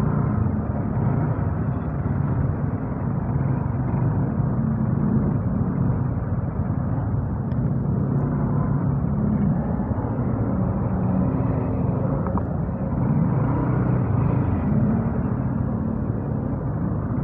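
Motorcycle engine running at low speed with the drone of surrounding traffic and road noise, picked up by a wired earphone's microphone while riding slowly through heavy traffic.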